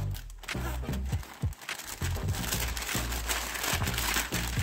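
Plastic ration packaging crinkling and rustling as it is handled, with scattered light clicks and knocks.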